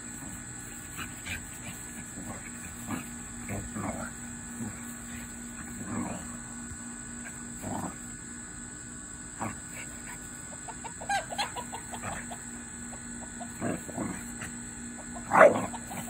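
A dog and a cat scuffling: scattered short animal cries and grunts at irregular intervals, with a quick run of them about two-thirds of the way through and the loudest cry shortly before the end.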